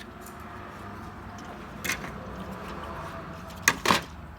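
Plastic clips of a Chevrolet instrument cluster's front cover snapping loose as the cover is pried off: one click about two seconds in, then two sharp snaps close together near the end, over steady background noise.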